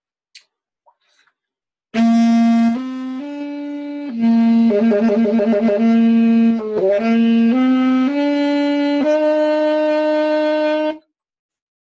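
Saxophone playing a short phrase of held notes that step up and down in pitch, starting about two seconds in, with a quick warbling passage in the middle and a long final note that cuts off about a second before the end.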